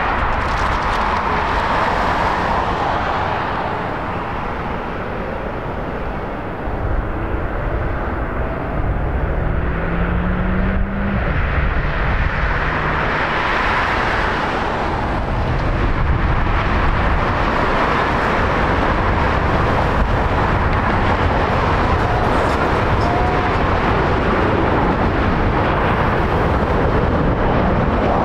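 Boeing 777's twin jet engines running as the airliner moves along the runway: a steady jet noise that grows louder about six seconds in and again around sixteen seconds, with a short rising tone near ten seconds.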